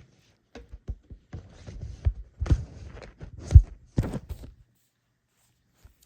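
Handling noise from a Blu-ray case and its packaging: a run of irregular knocks, taps and rustles, the loudest thump about three and a half seconds in, stopping about four and a half seconds in.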